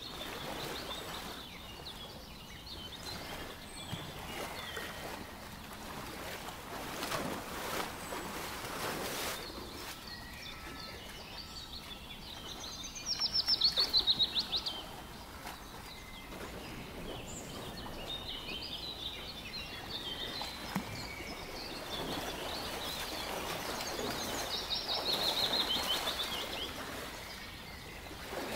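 Outdoor ambience of small songbirds chirping over a steady background hiss. A loud rapid trill of quickly repeated notes comes about halfway through, and another near the end; these are the loudest sounds.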